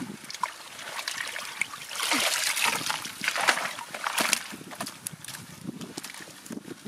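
Water splashing and sloshing in a plastic bucket as live catfish are tipped in from a woven basket and thrash about. The splashing is loudest from about two to four and a half seconds in.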